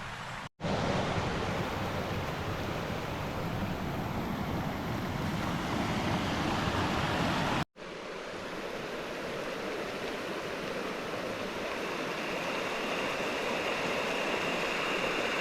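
Steady rushing of water from creeks swollen by heavy overnight storms, in stretches broken by brief silent cuts about half a second and nearly eight seconds in. The middle stretch is louder and deeper; the last is higher and thinner.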